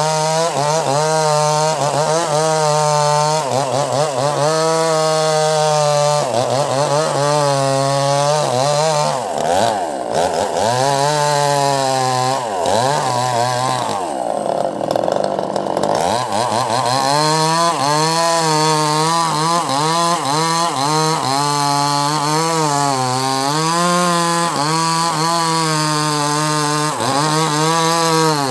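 Two-stroke petrol chainsaw at high revs cutting into a curved rambutan log, its engine pitch wavering as the chain bites. Between about nine and sixteen seconds in, the revs dip repeatedly under heavier load, then climb back.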